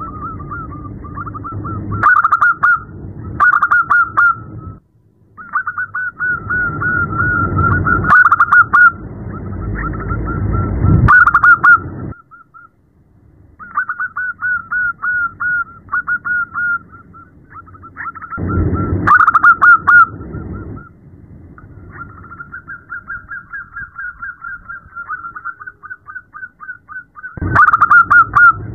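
Zebra dove (perkutut) calling, billed as a female calling to a male: long runs of rapid, stuttering cooing notes, louder in bursts every few seconds, breaking off briefly now and then.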